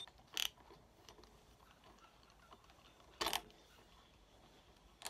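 A few sparse metal clinks from a threaded harmonic-damper installer tool being unscrewed and handled on an engine's crank snout: a light one about half a second in, a louder one a little after three seconds, and a faint one at the end.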